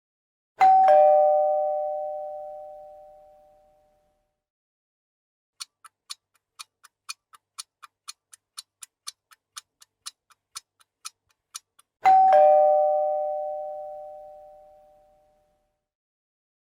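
Two-note doorbell chime, a high ding falling to a lower dong that rings out over about three seconds, sounded twice. Between the two chimes comes a quick clock-like ticking, about four ticks a second for some six seconds.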